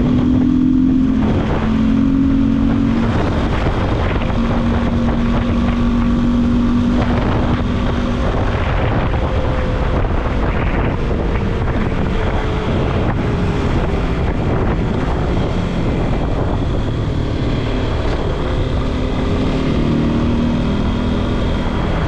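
Yamaha Lander 250's single-cylinder engine running while riding, under heavy wind noise on the microphone. Its pitch holds steady for a few seconds at a time and slowly drops about halfway through as the bike eases off.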